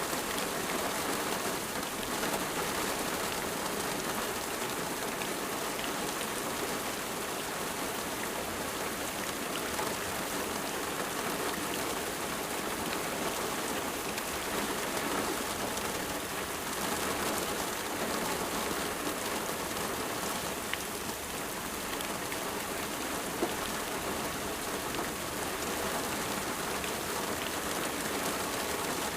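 Steady rain falling, an even hiss of many drops with a scattering of small, sharper drop ticks.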